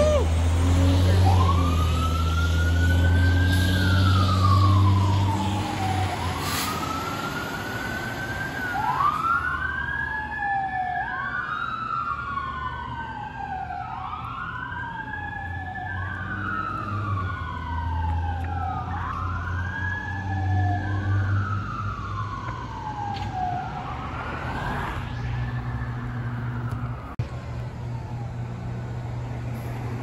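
Fire engine pulling away with its diesel engine rumbling loudly at first, while its siren wails up and down in a slow rising-and-falling cycle every two to three seconds. Through the middle the wails overlap, then the siren fades off near the end.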